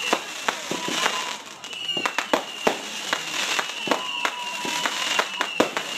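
Aerial fireworks firing and bursting in quick succession: sharp bangs and pops about every half second over a crackling hiss, with a thin steady whistling tone that comes and goes.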